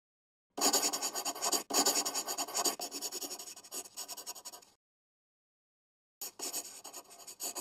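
Pen scratching quickly across a drawing surface, the sound of drawing, in two bouts: the first starts about half a second in and lasts about four seconds, and the second starts near the end.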